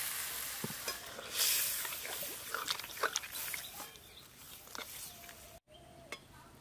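Water hitting the hot oil in a metal wok of vegetable curry, the sizzle fading, while a flat metal spatula stirs and scrapes against the pan with scattered clinks.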